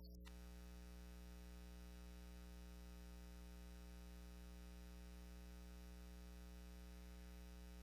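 Near silence with a faint, steady electrical hum and buzz.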